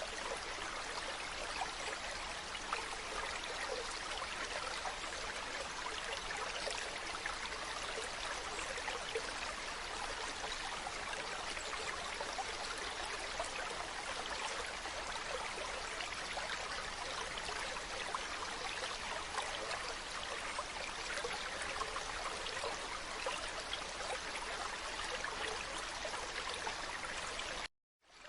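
Mountain stream running water: a steady, even rush with fine trickling detail. It drops out to silence for a moment near the end.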